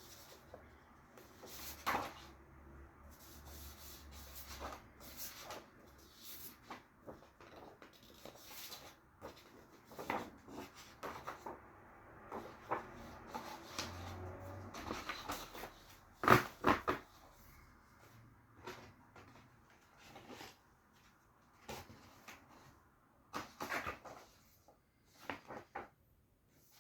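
Hands handling a boxed tabletop game set and its contents: irregular knocks, taps and rustles, with two sharper knocks about two-thirds of the way through.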